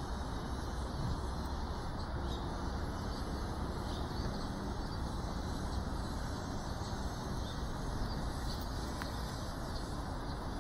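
Steady outdoor background noise: a low hum of distant traffic with occasional faint bird chirps.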